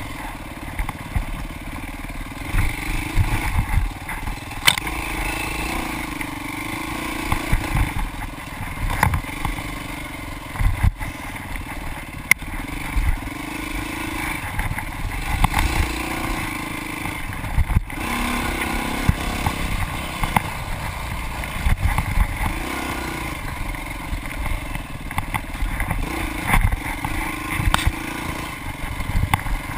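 Off-road dirt bike engine running hard, the revs rising and falling as the rider throttles through the trail, with frequent sharp clunks and rattles from the bike hitting bumps.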